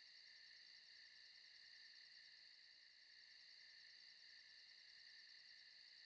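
Faint night chorus of crickets: several steady high chirring tones, with a higher trill pulsing evenly about five or six times a second.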